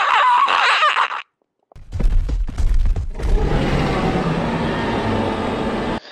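Friends' phone-recorded screams. A high, wavering scream cuts off about a second in. After a short silence comes a second, much rougher recording: a loud, distorted noise with a deep rumble, crackles and no clear pitch.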